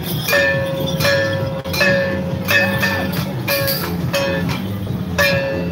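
Temple-procession percussion: a gong struck in a steady beat, about three strokes every two seconds, each stroke ringing with a slightly falling tone, over a continuous low din of drums and crowd.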